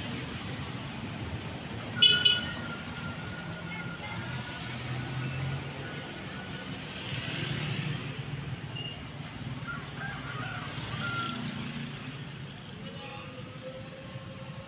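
Street traffic: motorcycles and other motor vehicles running past with a steady low rumble. About two seconds in comes a short loud beep, the loudest sound here.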